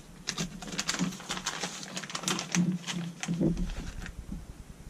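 Plastic soft-bait packaging crinkling and crackling in the hands, a quick run of small crackles and clicks that dies away near the end.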